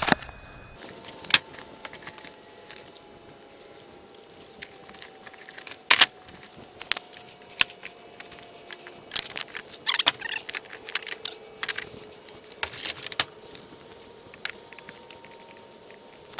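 Irregular clicks, taps and rattles of small hard gear being handled, several sharp knocks standing out, with a faint falling tone in the background.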